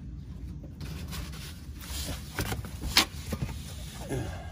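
Handling noises from work at the van's oil pan: scattered knocks and rustles of the cardboard and plastic drain pan being moved into place, with one sharp click about three seconds in, over a low steady hum.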